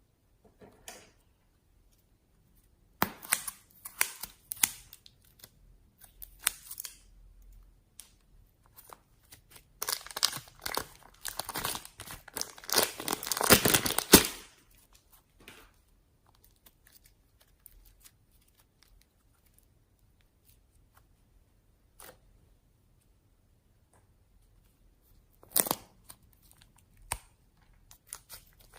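Slime being squished, stretched and pulled apart by hand, giving crackly, sticky tearing sounds in irregular bursts. The longest and loudest run comes about halfway through, with quiet pauses between bursts.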